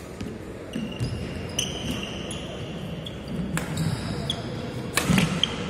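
Badminton rally on a wooden court: sneakers squeaking on the floor in short high squeals, with a few sharp racket strikes and footfalls, the loudest about five seconds in.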